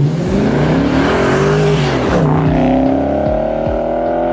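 Straight-piped 4.2-litre V8 of a B6 Audi S4 accelerating past and away down the road: its exhaust note climbs in pitch, dips about two seconds in, then climbs again steadily as it pulls away.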